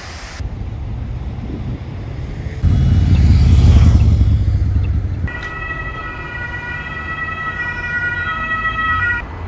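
City street traffic: a heavy vehicle passes with a loud low rumble, then a steady high-pitched squeal of several tones sounds for about four seconds and stops suddenly.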